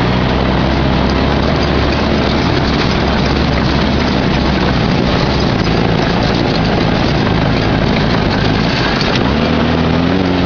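Off-road dune buggy's engine running hard under load on a rough, rocky dirt climb, heard on board with a steady rush of noise over the engine note. The engine note rises near the end.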